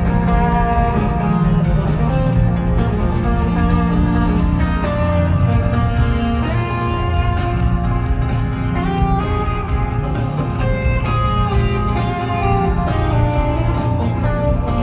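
A rock band playing live: a guitar out front over bass and a steady drum beat.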